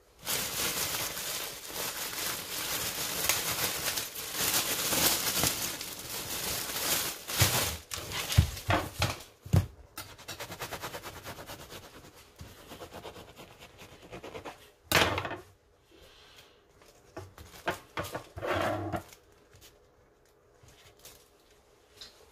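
A plastic bread bag crinkling for several seconds as a sub roll is pulled out, with a few knocks on the countertop near the end. Then quieter scraping as the soft roll is cut open with a knife, with a couple of short louder rustles.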